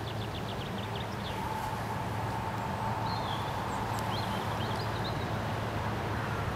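Distant electric locomotive hauling a train on the approach: a steady low hum that slowly grows louder. Small birds trill and chirp over it.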